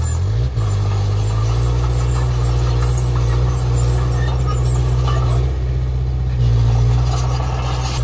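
Komatsu D20P bulldozer's diesel engine running steadily. Its pitch dips briefly and recovers just after the start, and it gets louder about six and a half seconds in.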